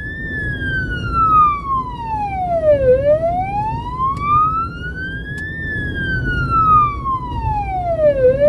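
Emergency-vehicle siren on slow wail, its pitch rising and falling about every five and a half seconds, heard from inside the car's cabin over road rumble.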